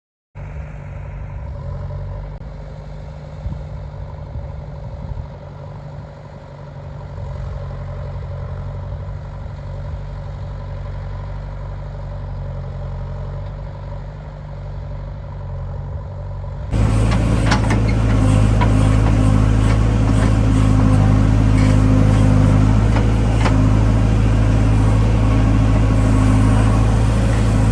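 Heavy diesel engine of an earthmoving machine running steadily with a low hum. About two-thirds of the way through, the sound jumps abruptly to a much louder, fuller engine drone.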